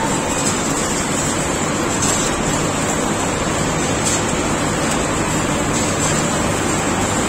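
Multi-block wire-drawing machine running: a steady, loud mechanical noise with a constant high whine above it.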